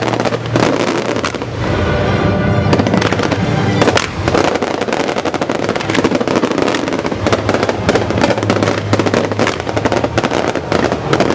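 Fireworks going off in rapid, dense crackles and bangs over music played for a pyromusical display.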